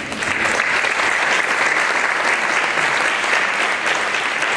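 Audience applauding: many hands clapping in a steady, even stream.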